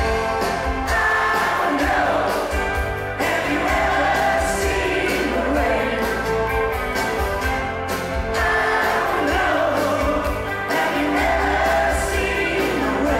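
Live rock band playing, with lead vocals over electric guitars, bass and drums, heard from the audience in a concert hall. The singing comes in phrases of a couple of seconds.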